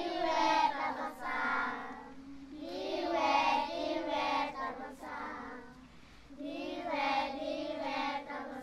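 A group of young girls singing together without instruments, a song thanking God, in three phrases with short pauses for breath between them.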